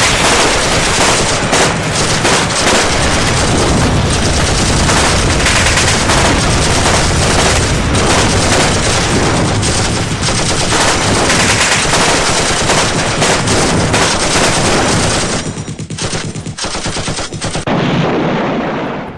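Dense, continuous battle gunfire: rapid machine-gun fire mixed with other shots, loud and unbroken for about fifteen seconds, then thinning into scattered shots before cutting off at the end.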